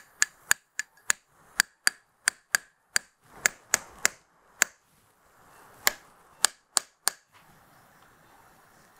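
Surgical mallet striking an impactor to seat the metal trochlear component of a patellofemoral knee replacement: a run of about seventeen sharp taps, two to three a second, with a short break around five seconds in, stopping about seven seconds in.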